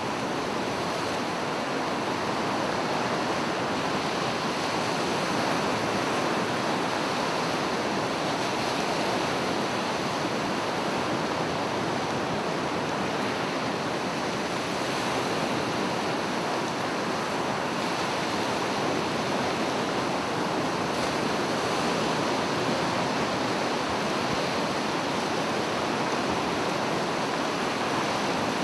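Sea surf washing onto a beach, a steady, even rush of noise with wind mixed in.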